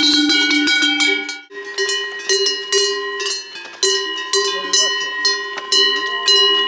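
Large cowbells on the collars of grazing cows clanging unevenly as the cows move and crop grass, several bells of different pitch ringing together. One bell dominates at first; about a second and a half in, a different, higher bell takes over.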